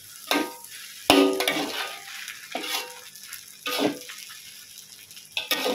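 Metal spatulas scraping and clanking against a metal wok as fried flat rice noodles and bean sprouts are tossed. The strokes are irregular, the loudest about a second in, with a short metallic ring.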